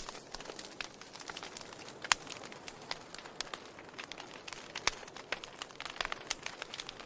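Wood fire crackling: irregular sharp pops and snaps from burning wood over a faint hiss, with two louder pops about two seconds in and near five seconds in.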